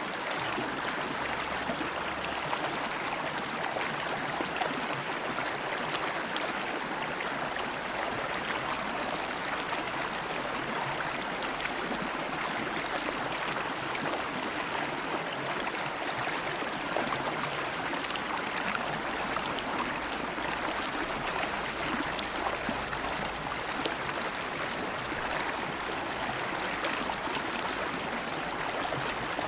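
River water flowing steadily over rocks, an even rush with small splashes and gurgles throughout.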